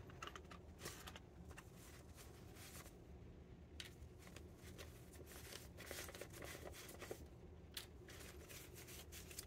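Faint rustling of paper banknotes being slid out of a clear plastic binder pocket and handled, in scattered small crinkles.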